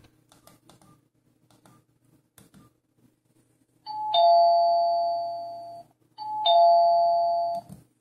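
Philips Xenium E218 mobile phone's built-in message tone playing as a preview through its small speaker: a two-note chime, high then lower, that fades out. It sounds twice, the second cut off near the end, after a few faint keypad clicks.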